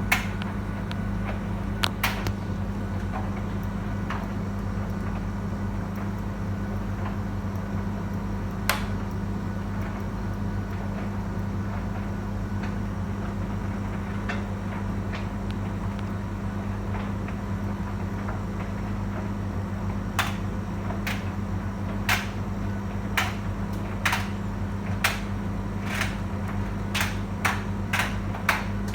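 Beko tumble dryer running, with a steady low hum from the motor and drum. Sharp clicks or knocks come now and then, and about once a second in the last third.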